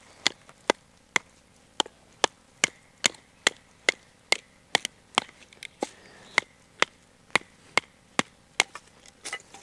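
Batoning: a wooden baton steadily striking the spine of a Blind Horse Knives Bushcrafter knife to drive it through a piece of wood, about two to three sharp strikes a second.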